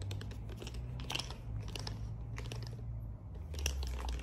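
Irregular small clicks and crunchy rattles from a plastic-handled adjustable length screwdriver being handled and moved about close to the microphone, over a low steady hum.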